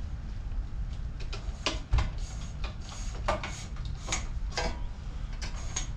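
Electrical wires being fished through into a breaker panel: scattered light clicks and scrapes as the cable is pushed and pulled through.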